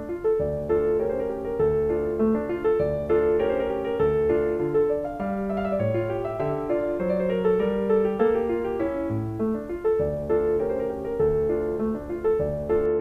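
Background piano music: a steady stream of melody notes over a bass line.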